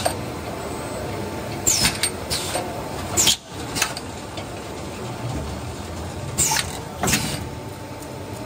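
Paper fork moulding machine running: its pneumatic cylinders let out short, sharp hisses that fall in pitch, mostly in pairs every two to three seconds, over a steady machine hum.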